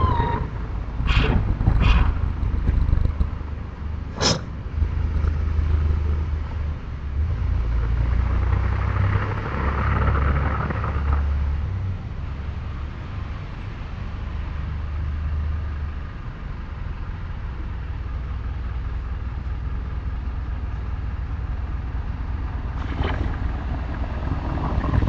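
A low rumble, heaviest from about five to sixteen seconds in, with a few sharp knocks in the first five seconds and another near the end.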